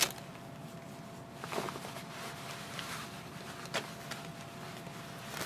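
Faint rustling of cloth as a yellow garment is shaken out and handled: a few short, soft rustles over a low, steady room hum.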